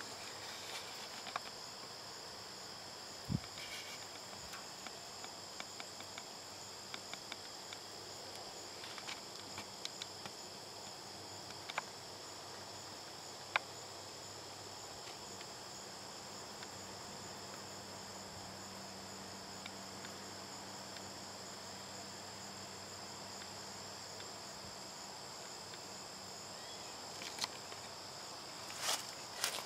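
Insect chorus in the grass: a steady, high-pitched trilling that never lets up. A few faint ticks and rustles, louder near the end.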